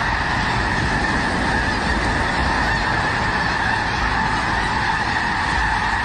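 A huge flock of snow geese calling all at once: a dense, unbroken din of honking that holds steady throughout.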